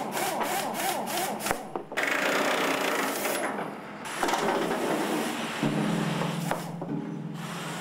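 Rasping, scraping noise with a run of quick strokes in the first second or so. A low steady hum comes in about two thirds of the way through.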